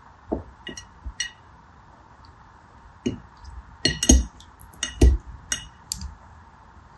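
Gel water beads being handled in a clear ribbed tray with a pointed tool and fingernails: about a dozen short, sharp taps and clinks, a few at the start, then a pause, then a denser run of them in the second half.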